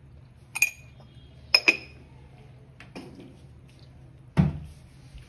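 Steel spoon clinking against a stainless-steel mixer-grinder jar while salt is tapped in: three bright ringing clinks in the first two seconds, a faint tap, then a duller knock near the end.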